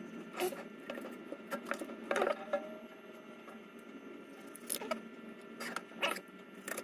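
Knife cutting up a raw whole chicken on a plastic cutting board: scattered clicks and knocks of blade and board as the carcass is handled, over a faint steady hum.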